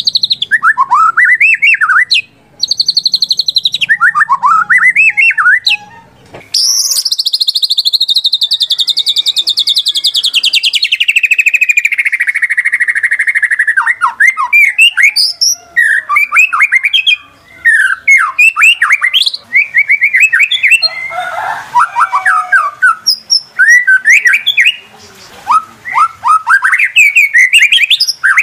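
White-rumped shama (murai batu) singing a loud, varied song of quick rising and falling whistled phrases. A long trill slides down in pitch for several seconds about a third of the way in.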